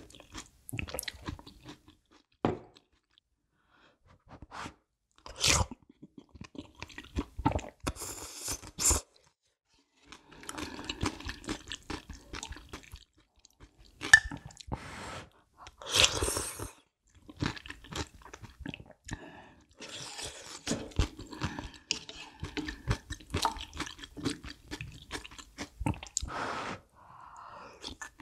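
Close-miked eating: a person chewing and slurping spicy kalguksu noodles and broth, with crunchy bites and short smacking mouth sounds, in several separate bursts with brief pauses between.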